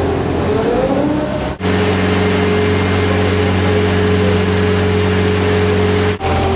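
A vintage car's engine rising in pitch as it revs. After a cut comes the steady, even drone of a car ferry's engine.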